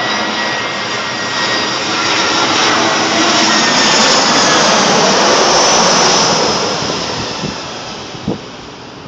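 Jet airliner on final approach passing low overhead with its landing gear down: the engine noise and rushing air swell, loudest about halfway through, then fade as it moves away.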